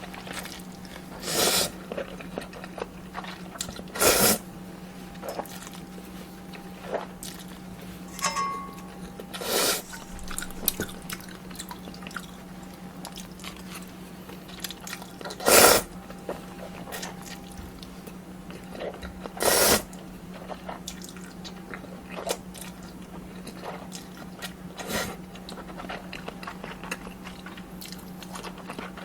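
Close-miked eating of kimchi ramen and dumplings: wet chewing and bites with many small clicks, and five louder, half-second noodle slurps spread through, over a steady low hum.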